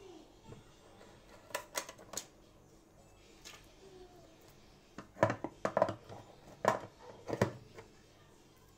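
Sharp clicks and knocks from a phone's box and packaging being handled. There are a few light ones at first, then a louder quick run of knocks in the second half.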